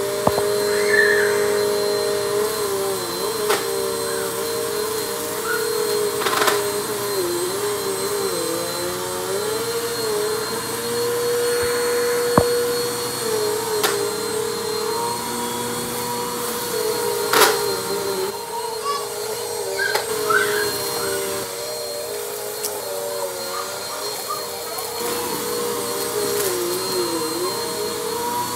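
Bissell PowerForce Compact upright vacuum running steadily, its motor whine wavering and dipping in pitch as it is pushed back and forth over a rug. Sharp clicks now and then as dirt and bits of cereal are sucked up.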